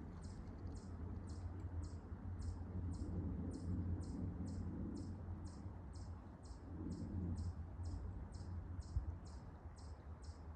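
A small animal's high, thin chirp, repeated steadily about two to three times a second, in the spring woods by a pond.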